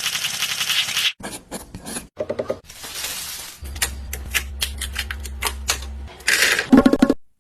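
A quick, irregular series of small clicks, taps and scrapes of hard objects, with a short hiss about two and a half seconds in and a low steady hum through the middle.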